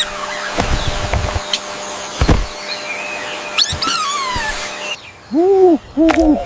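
Monkey calls and handling noise: short squeaks and chirps among a few knocks and thumps, then two short hoots that rise and fall in pitch near the end.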